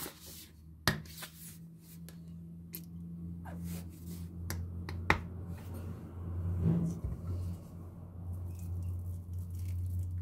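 Plastic dish-soap bottle being handled and squeezed: a scattering of sharp clicks and light taps, the two loudest about a second in and about five seconds in, over a steady low hum.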